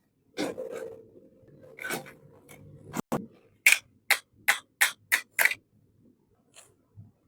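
Small plastic toy kitchen pieces being handled, a few soft rustles and taps, then a quick run of six sharp clicks, about three a second.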